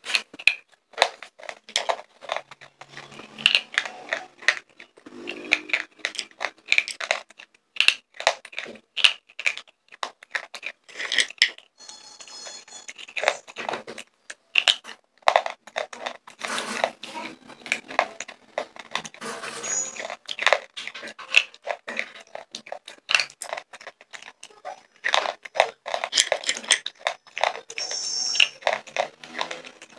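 Slate pencils being bitten and chewed close to a clip-on microphone: a run of sharp, crisp crunching snaps and gritty grinding, bite after bite.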